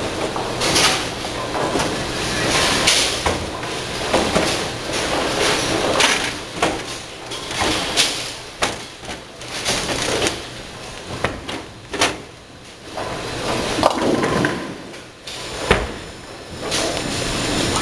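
Bowling-alley pinsetter machinery clunking as it sets a fresh full rack of pins, amid irregular knocks and clatters of the alley.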